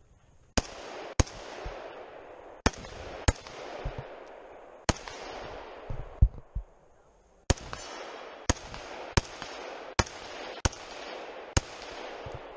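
About a dozen rifle shots from a scoped semi-automatic .308 Winchester rifle, each with a rolling echo off the surrounding forest. The shots come in pairs early on, then a pause with a few dull knocks, then a faster run of single shots about a second apart near the end.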